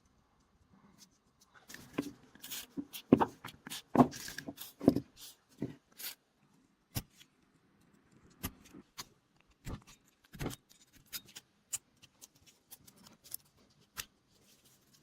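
Irregular sharp clicks and knocks as a revolver is handled and worked on, with a busy run of louder ones about two to five seconds in, then sparser taps.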